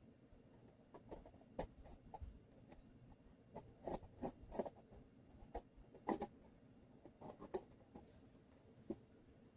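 Thin titanium stove panels being handled and fitted together, giving faint, irregular light clicks and taps.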